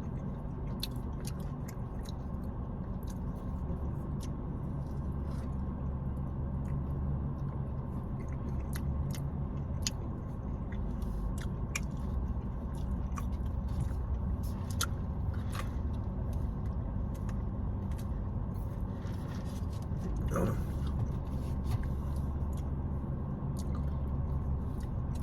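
Chewing, with scattered small clicks and scrapes of eating, over the steady low hum inside a car.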